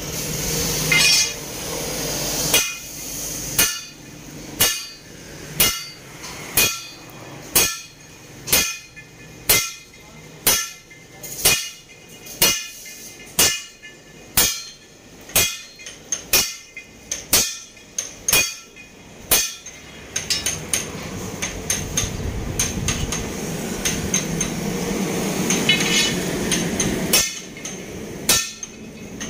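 Sledgehammer striking a steel truck leaf-spring leaf on an anvil: heavy metal clanks at a steady pace of about one blow a second. The blows stop for about seven seconds, leaving a steady background rumble, then start again near the end.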